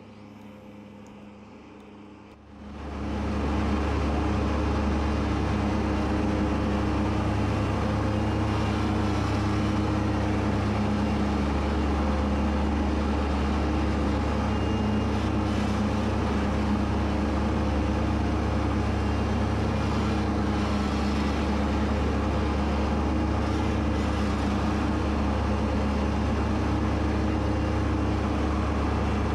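Kubota B2601 compact tractor's three-cylinder diesel engine and mower deck running steadily under load while cutting thick, wet grass. The sound comes up from much quieter over about a second, some two and a half seconds in, then holds even.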